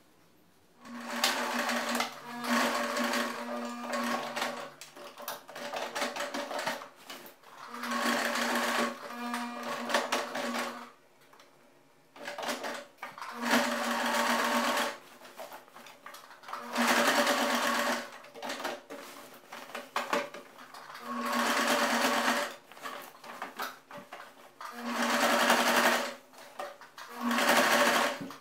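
Electric household sewing machine stitching through thick denim at a jeans waistband, running in short bursts of a few seconds and stopping between them, about seven runs in all, with a steady motor hum under the rattle of the needle.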